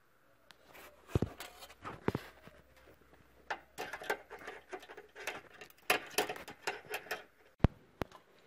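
A screwdriver and metal and plastic parts worked by hand at a steering rack's end bushing: irregular clicks, taps and short scrapes, with a few sharper knocks, the sharpest near the end.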